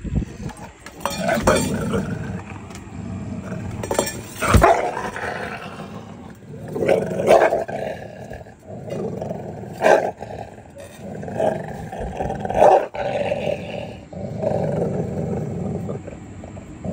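Dog growling in long low rumbles, a warning over his food bowl, a sign of resource guarding, while a grabber tool presses at the bowl. Several sharp clanks from the stainless steel bowl break in.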